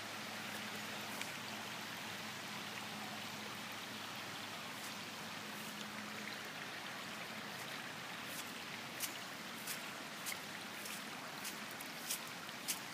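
Floodwater flowing over a street, a steady, even wash of running water. From about eight seconds in, scattered short clicks and taps come over it.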